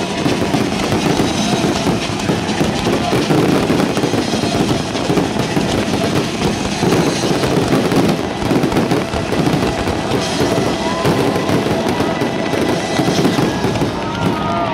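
Fireworks display going off in a dense, continuous barrage of bangs and crackling.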